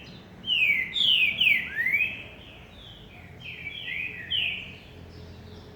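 A songbird singing a phrase of clear, loud whistled notes, most of them sliding down in pitch and one sliding up, followed by a softer run of similar notes that stops about four and a half seconds in.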